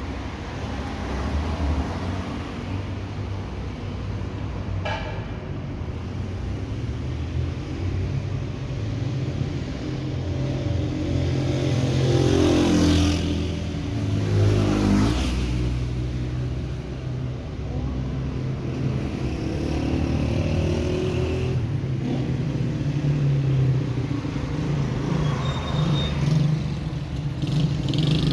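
Low, steady engine rumble of road traffic, with one vehicle passing about halfway through, its pitch climbing and then dropping as it goes by.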